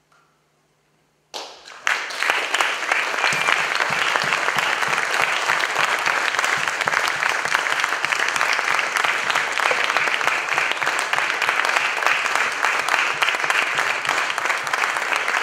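Audience applauding: after a second or so of near silence, the clapping starts suddenly about a second and a half in and goes on steadily.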